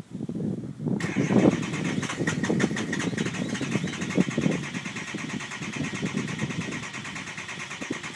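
Truck engine cranking on the starter without firing: a rapid, even churning that sets in about a second in and stops near the end without catching.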